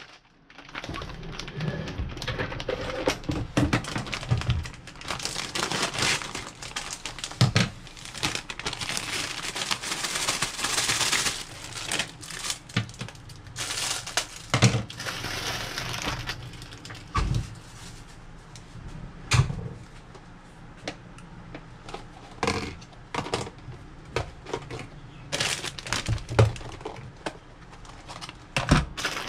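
Crinkling of a plastic salad-kit bag as it is handled and cut open with scissors, followed in the second half by scattered clicks and knocks of plastic food-storage containers and lids.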